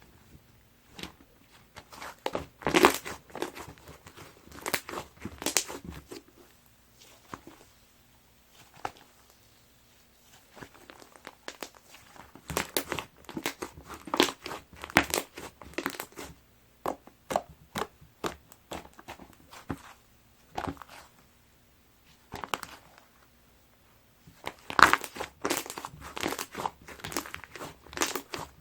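Chocolate sherbet cloud slime being played with, giving clusters of crisp crackling and crinkling sounds separated by short quiet pauses.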